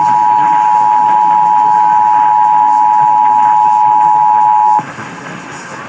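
Emergency Alert System attention signal: the steady two-tone alert (853 Hz and 960 Hz together) of a required monthly test over a broadcast station, cutting off abruptly about five seconds in and leaving a low hiss.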